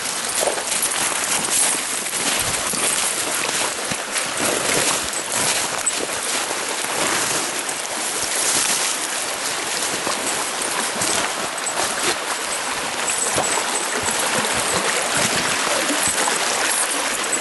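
Steady rushing of running water over rocks, with scattered crunching and rustling close by.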